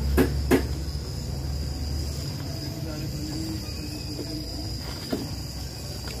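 Butane torch flame burning with a low rumble for about two seconds, then cutting off as the flame is taken away or shut off, while a PVC pipe tip is heated to soften it. Two sharp clicks come near the start, and a steady high insect trill runs underneath throughout.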